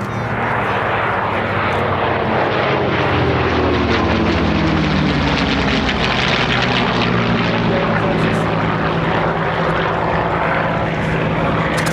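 Piston-engined WWII warbirds making a flypast, propellers and engines loud. Their engine note drops in pitch as they pass, a few seconds in.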